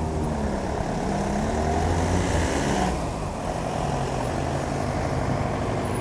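Steady low rumble of freight wagons rolling away on the rails as the tail of the train recedes.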